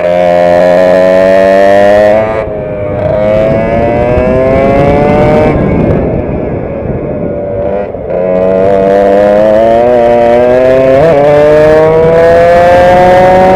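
Direct-drive two-stroke racing kart engine at full throttle, heard from on board, its pitch climbing along each straight. It drops off sharply about two seconds in and again near five and a half seconds as the throttle is lifted for corners, runs lower and rougher for a couple of seconds, then climbs in one long pull from about eight seconds on.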